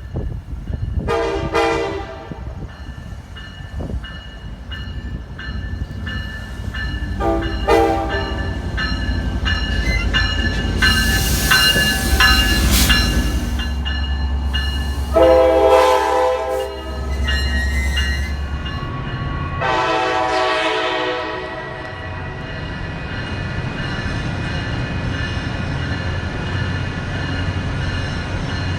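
A train sounding its Nathan K5LA five-chime air horn in four separate blasts: a short one near the start, another about a quarter of the way in, a longer one a little past halfway and another shortly after. Under the horn are the steady rumble of the locomotive and the clatter of wheels on the rails, with a loud rushing hiss around the middle.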